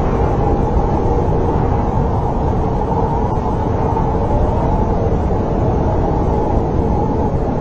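Steady snowstorm wind: a deep, even rumble with a faint wavering howl over it.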